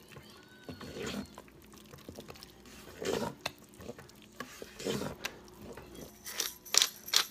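Wooden spoon stirring grated cheddar into hot cooked grits in a pressure cooker's metal inner pot, a slow wet stroke about every two seconds with light taps of wood on metal. A few sharper clicks near the end.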